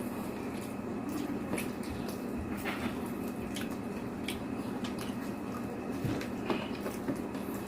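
Wet chewing and mouth sounds from someone eating, with scattered light clicks, over a steady low hum.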